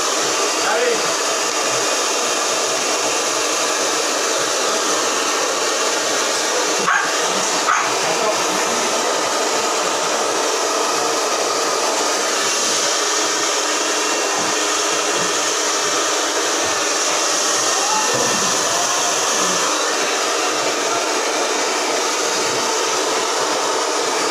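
Handheld hair dryer blowing steadily on a dog's coat, a constant airy whoosh. Two brief knocks about seven and eight seconds in.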